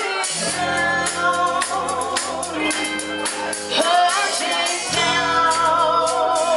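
Live band performing: a female lead singer sings over electric guitars and drums, with low bass notes dropping out briefly near the middle.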